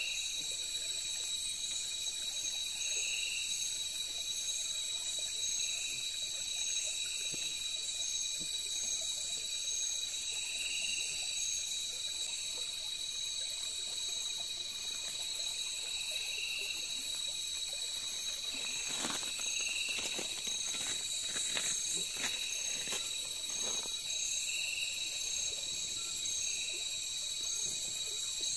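Night insect chorus of crickets and other insects, a steady high-pitched chirring with a softer call repeating every two or three seconds. About two-thirds of the way in comes a short run of sharp snaps and cracks from the campfire as it is tended.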